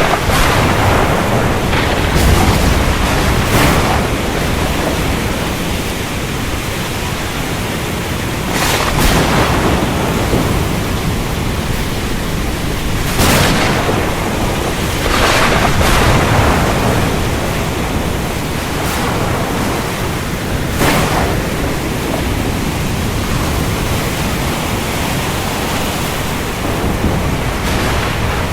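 Heavy rain falling steadily, with low rumbling and several short, sharp thunder cracks scattered through.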